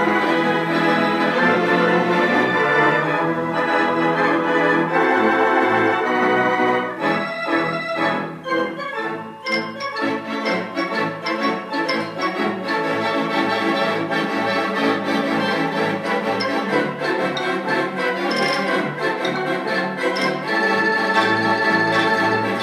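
Wurlitzer theatre pipe organ playing a tune in full, sustained chords. About seven seconds in it drops back to lighter, shorter notes for a few seconds, then builds back up over a pulsing bass line.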